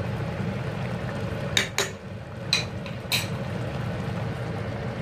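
Metal ladle clinking against a stainless-steel cooking pot four times in quick succession, over a steady low rumble from the pot of fish and sauce simmering on the stove.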